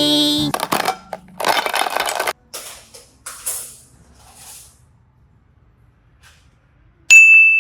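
Cartoon-style sound effects: a short pitched vocal note, then a couple of seconds of noisy whooshing and softer rustles. Near the end, a bright bell-like ding rings out.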